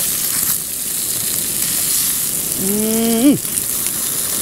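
Smoked sausage sizzling steadily as it fries in its own oil in a pan. About three seconds in, a person gives a short hum that rises in pitch.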